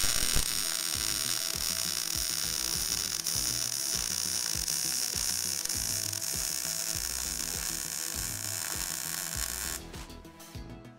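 MIG welding arc crackling and hissing steadily as a bead is laid on steel tube, cutting off about ten seconds in.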